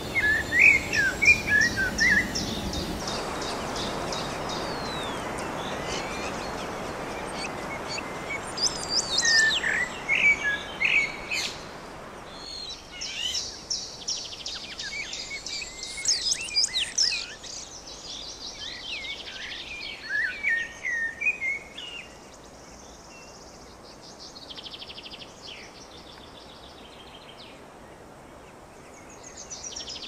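Several birds calling and singing in overlapping chirps, short rising and falling whistles and rapid buzzy trills. A steady hiss runs under the first dozen seconds, and the calls thin out in the second half.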